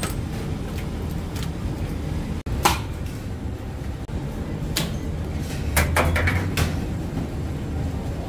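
A steady low machinery hum with scattered sharp knocks and clatters, a cluster of them about six seconds in.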